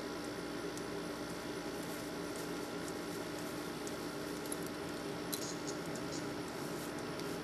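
Steady low hum with a few fixed tones under a light hiss, with faint, scattered high-pitched chirps and ticks, a small cluster of them about five seconds in.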